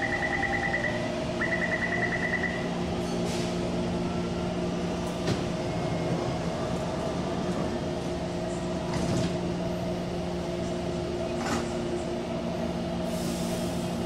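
Metro door-closing warning buzzer, a rapid pulsing high beep sounding twice in the first few seconds, over the steady electric hum of a subway train standing at the platform. Several short knocks follow as the train and platform screen doors shut.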